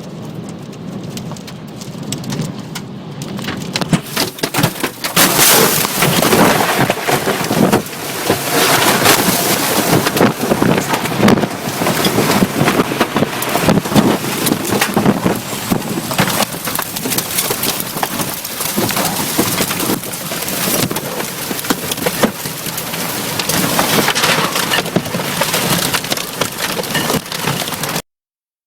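Tornado winds and heavy rain blasting the microphone in a dense, loud rush, with many sharp knocks and cracks through it. It builds up over the first few seconds and cuts off abruptly near the end.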